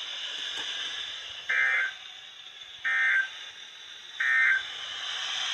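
NOAA Weather Radio end-of-message signal: three short, shrill digital data bursts (the SAME 'NNNN' code) about 1.3 s apart, starting about a second and a half in, over a steady radio hiss. The bursts mark the end of the alert broadcast.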